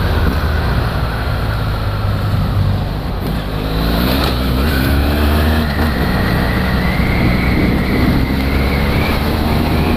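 BMW F800GS parallel-twin engine running under way through an open exhaust pipe. About three and a half seconds in, the engine pitch rises as it accelerates, then holds steady.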